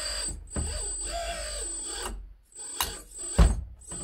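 A 1/16-scale Kabolite 336GC RC hydraulic excavator's hydraulic pump whining, its pitch shifting and cutting out twice as the controls are worked. A sharp knock sounds about three and a half seconds in.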